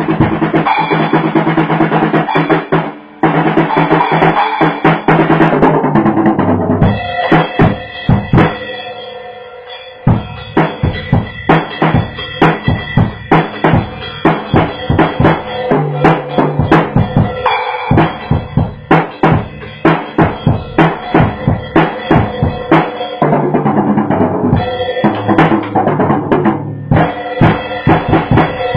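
Drum kit played with Firestix light-up drumsticks along with other pitched music. The playing is full and dense at first and again near the end. In the middle it drops back briefly, then comes sparser, sharp hits at about two a second.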